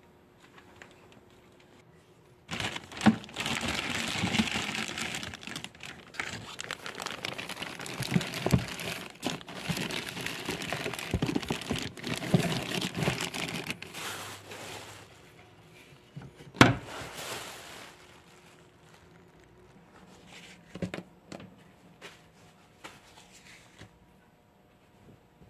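A plastic bag crinkling and rustling as it is handled, with scattered knocks. The crinkling stops about fifteen seconds in, and a single sharp knock follows shortly after, then fainter handling.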